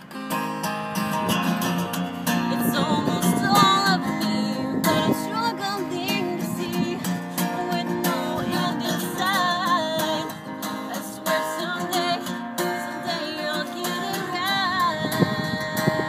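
Acoustic guitar strummed steadily while a woman sings, her held notes wavering.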